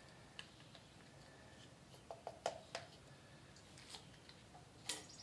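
Quiet room with a few light clicks and taps from small objects being handled: a cluster about two to three seconds in and one more near the end.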